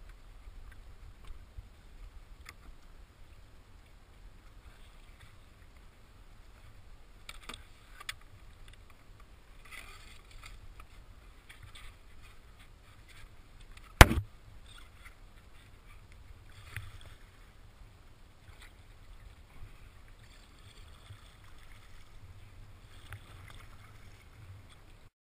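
Kayak paddling: irregular splashes and drips of the paddle blades in the water over a low rumble, with one sharp knock about halfway through.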